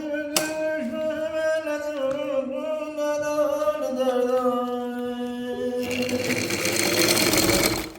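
A voice singing long held notes, each a little lower than the last, followed near the end by about two seconds of loud whirring noise.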